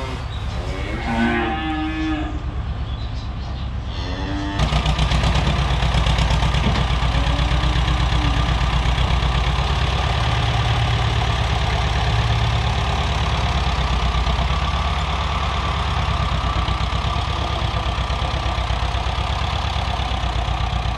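Young bulls mooing. About four and a half seconds in, a tractor engine comes in suddenly and runs steadily with a low, even pulse, and one more moo sounds over it soon after.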